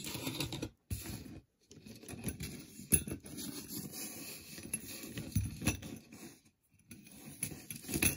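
Metal jewelry clinking and rattling as a tangled gold-tone chain necklace is pulled free from a pile of other pieces, with a louder clink about three seconds in.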